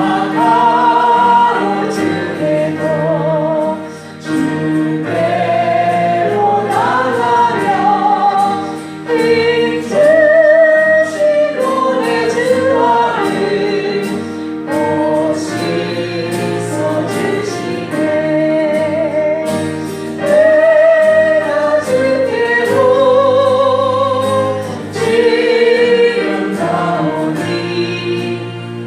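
A group of voices singing a Christian praise song together over sustained instrumental accompaniment, the sung phrases rising and falling while low chords hold underneath.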